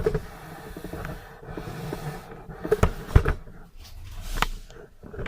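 Handling noises as a motorcycle fuel tank is lifted off the frame: rustling and light clatter, with a few sharp knocks in the middle and one near the end.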